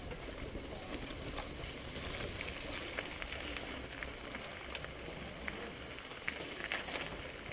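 Mountain bike rolling over a dirt and rock forest trail: a steady rolling noise with scattered small clicks and knocks from the tyres and the bike rattling over bumps.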